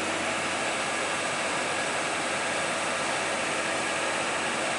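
Heavy dump truck's engine running hard and steady, a loud even rushing noise with a faint steady hum, as the truck struggles on the steep climb.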